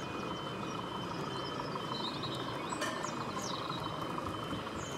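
An OO gauge model train runs along its track against a steady background of exhibition hall noise. A few short high chirps and a sharp click come about two to three seconds in.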